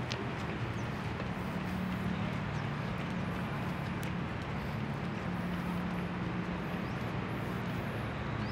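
Steady urban outdoor ambience: a continuous low hum under a wash of background noise, with no clear single event.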